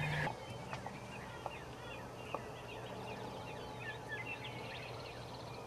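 Many small birds chirping and twittering, with a faint steady low hum and a few light clicks.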